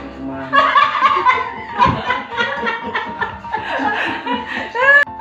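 People laughing hard in repeated bursts.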